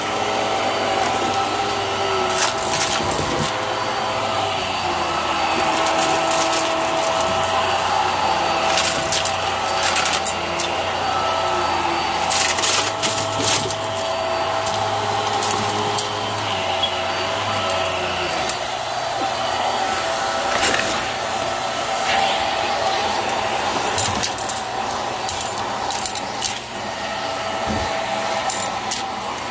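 Hart stick vacuum running steadily with a whine from its motor, as confetti, sequins and balloon bits click and rattle up through the nozzle into the clear dust bin.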